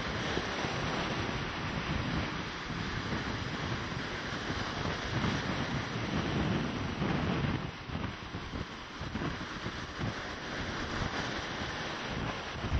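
Rough sea surf breaking steadily onto a sandy beach, with wind gusting across the microphone.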